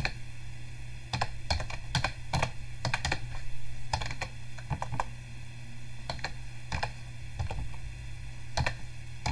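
Computer keyboard typing: irregular keystrokes, some in quick runs, over a steady low hum.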